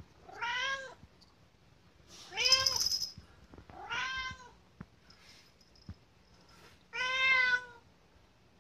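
Domestic cat meowing insistently to be fed: four long meows, each rising and then falling in pitch, about a second or more apart.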